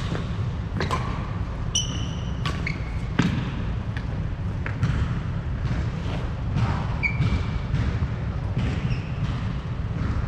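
Badminton rally on a wooden court: a string of sharp racket strikes on the shuttlecock at irregular intervals, with several short high squeaks of shoes on the floor, over a steady low rumble.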